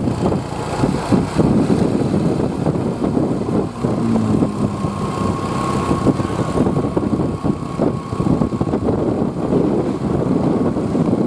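Bus engine running with a steady, dense rumble.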